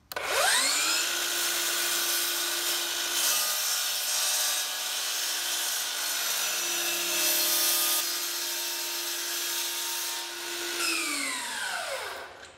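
DeWalt FlexVolt brushless sliding miter saw spinning up with a rising whine, its blade cutting through painted carved casing moulding for about ten seconds, then winding down with a falling whine near the end.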